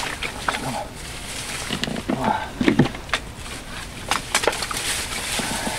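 Handling noises while bringing in a heavy hooked crucian carp: a run of scattered sharp clicks and knocks with brief rustling, and a short vocal sound just under three seconds in.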